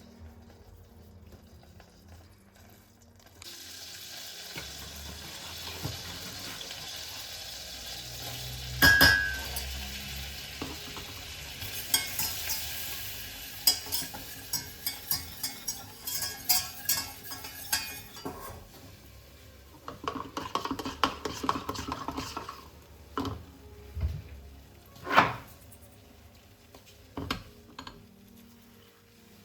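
Food sizzling in a hot frying pan, starting a few seconds in, while a utensil stirs it and clicks and scrapes against the pan. Past the halfway point the sizzle gives way to scattered clinks and knocks of utensils and dishes.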